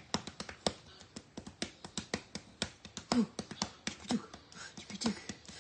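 Hands patting and rubbing a dog's belly in a quick, uneven run of soft slaps. After about three seconds, a few short low grunts falling in pitch come from the American Bully.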